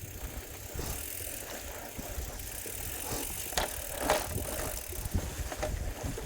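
Bicycle being ridden on a trail: steady tyre and drivetrain noise over a low rumble, with a few sharp rattling clicks about halfway through and near the end.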